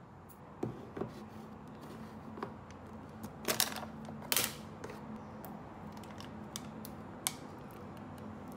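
Household objects being handled: a series of light clicks and knocks, the two loudest about three and a half and four and a half seconds in, over a steady low hum.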